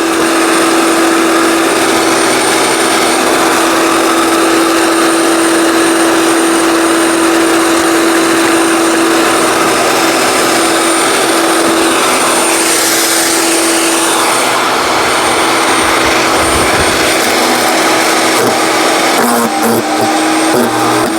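A 15-amp electric wood chipper-shredder running with a steady motor whine over a dense rushing noise. About thirteen seconds in, a louder surge of grinding noise comes as branches are chipped.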